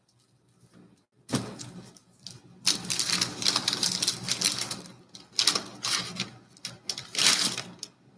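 Paper crinkling and rustling as baseball card packs and cards are handled, in irregular crackly bursts that begin about a second in and grow louder in the middle.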